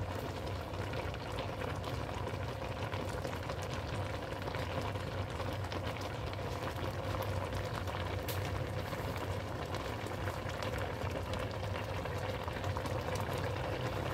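Pan of laing, taro leaves and pork in coconut milk, boiling hard: a steady bubbling with many small pops.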